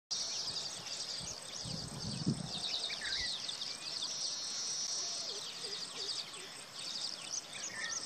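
Baya weavers chattering: many quick, high, overlapping chirps from a group of birds, with a held high note about halfway through. There is a brief low thump about two seconds in.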